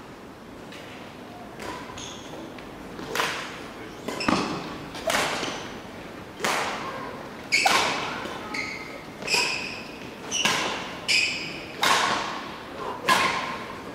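Sharp racket strokes on a badminton shuttlecock, about one a second, each echoing through a large sports hall and growing louder as the exchange goes on.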